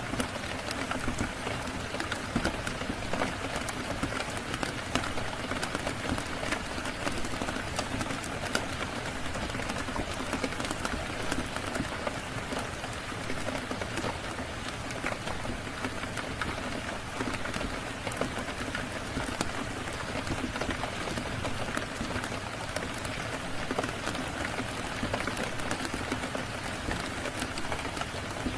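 Steady rain, an even hiss with many small sharp ticks and pops through it, mixed with a crackling fire.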